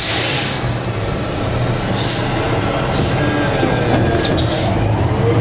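Madill 120 grapple yarder running under load, heard from inside its cab: a steady, loud engine and machinery drone, with four short hisses as the control levers are worked, the first and loudest right at the start.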